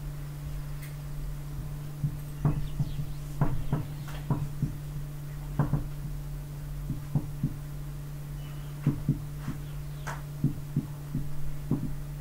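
Dry-erase marker tapping and scratching on a whiteboard as words are written: short irregular taps, a few a second, over a steady low hum.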